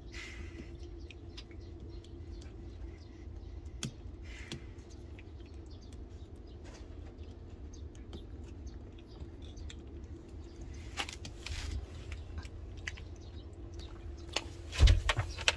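A calico cat licking Churu paste from a squeezed tube: a run of small, irregular wet licking clicks over a steady low hum. A short, louder bump near the end.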